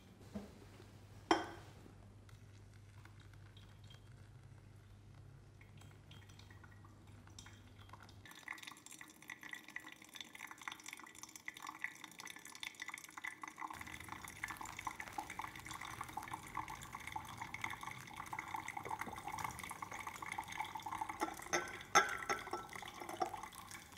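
Hot water poured in a thin stream from a gooseneck kettle onto coffee grounds in a ceramic pour-over dripper with a paper filter, a steady trickling and splashing that starts about eight seconds in. A sharp click comes about a second in, and a knock near the end.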